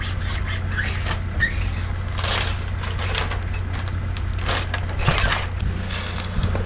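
Transfer tape being pulled off a freshly applied vinyl decal, in several short crackling tears over a steady low hum.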